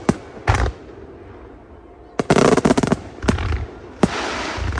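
Aerial fireworks bursting. There is a bang about half a second in, then a rapid string of crackling pops a little after two seconds. Another bang follows, and a long sizzling crackle runs near the end.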